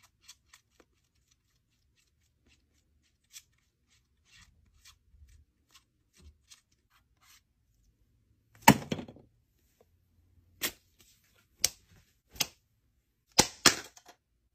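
Palette knife working paint on a palette: faint scattered scrapes and taps, then a loud clack about nine seconds in, followed by a handful of sharp taps.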